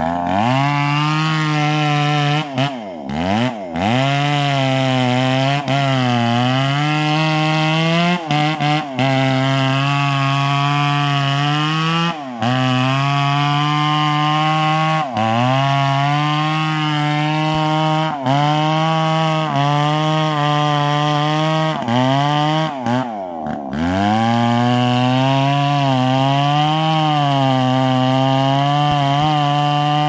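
Two-stroke chainsaw cutting into the base of a tree trunk, running at high revs with its pitch sagging and climbing back every few seconds as the chain bites into the wood.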